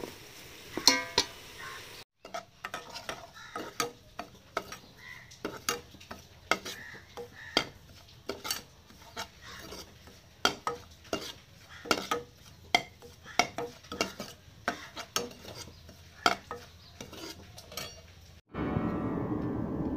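A metal ladle scraping and clinking against a metal pan as dry flour is stirred, in quick irregular strokes. About eighteen seconds in, the stirring stops and guitar music begins.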